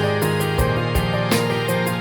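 Background music: soft piano-like keyboard melody with a regular beat.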